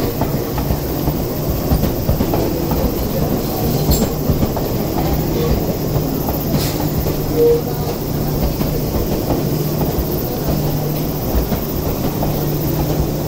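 Enoden 2000 series electric train rolling slowly past at close range over the station pointwork, with a steady low hum and rumble. A few sharp clicks sound as the wheels cross the rail joints and points.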